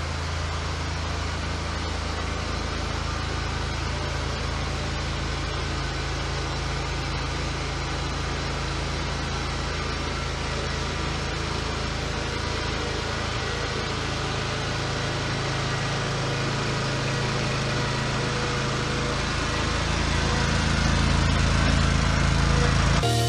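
Walker riding mower's engine running steadily as the mower drives down a trailer ramp, growing louder as it comes close near the end.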